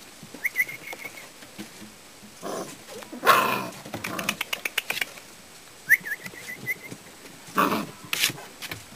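Five-week-old Alabay (Turkmen shepherd dog) puppies whining: two short runs of thin, high cries, one about half a second in and another about six seconds in. Louder rough bursts of noise come in between and near the end.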